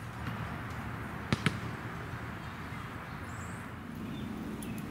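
Two sharp clicks in quick succession about a second and a half in, over steady outdoor background noise.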